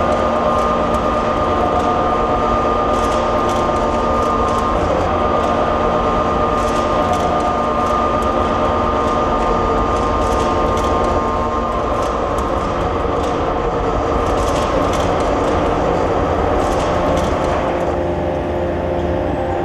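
Seismic shake table driving a steel-frame building model through a simulated magnitude 9 earthquake: a loud, steady mechanical rumble with whining tones and scattered rattling clicks. The whine drops out about twelve seconds in.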